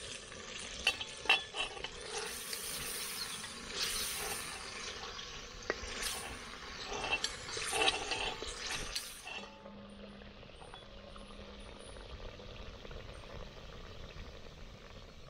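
Beef frying and sizzling in an aluminium pot over a campfire, stirred with a utensil that scrapes and clinks against the pot. The stirring stops about nine seconds in, and only a quieter, steady sizzle remains.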